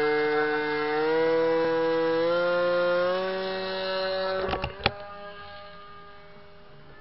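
Electric motor and propeller of an RC foam seaplane running at high throttle, its whine stepping up in pitch as the throttle is advanced during the take-off run. A few sharp clicks about four and a half seconds in, after which the whine drops to a fainter steady tone as the plane flies away.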